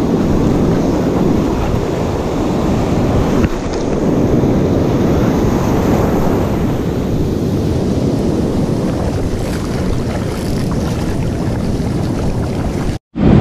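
Ocean surf washing and foaming in the shallows, with wind buffeting the microphone: a steady rushing noise heaviest in the low end. It drops out abruptly for a moment near the end.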